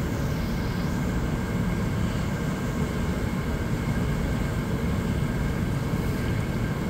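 Hot tub jets running: water churning with a steady low rumble.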